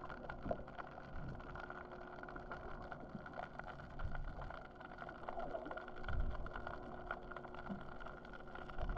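Muffled underwater sound picked up by a GoPro in its waterproof housing: a steady hum with a haze of faint crackles and a few dull thumps.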